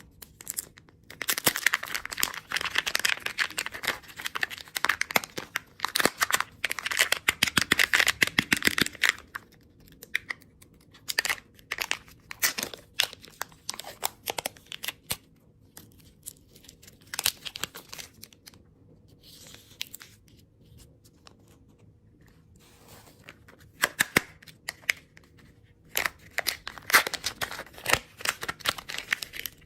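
Plastic candy wrappers being torn open and crinkled by hand: a long stretch of dense crackling in the first third, scattered short crackles and taps through the middle, and another burst of crinkling near the end.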